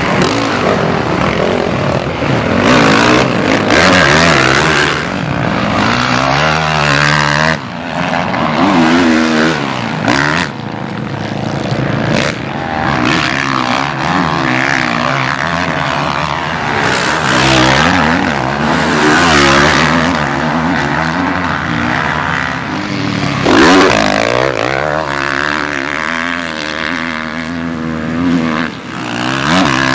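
Four-stroke motocross bike engines revving hard and falling back again and again, the pitch rising and dropping with throttle and gear changes, with a few abrupt jumps in sound where shots change.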